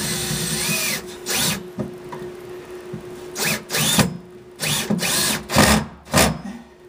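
Power drill driving big SPAX wood screws through a subwoofer's mounting flange: one run of about a second, then a string of short trigger bursts, the motor's pitch rising and falling with each.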